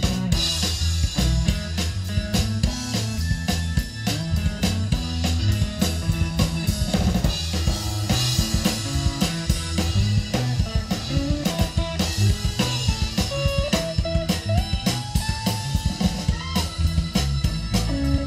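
Live rhythm-and-blues band playing an instrumental passage: electric guitars, keyboard and drum kit with a steady beat. A lead line climbs in pitch over the last few seconds.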